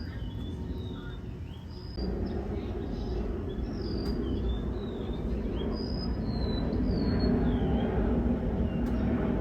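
Small birds chirping repeatedly in short, pitch-sliding calls, over a low rumble that grows louder from about two seconds in.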